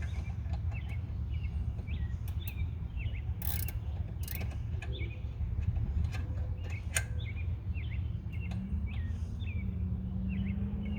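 Irregular metallic clicks and knocks of hand tools working the rear brake caliper bolts while they are being started. Small birds chirp repeatedly in the background, and a low steady hum comes in near the end.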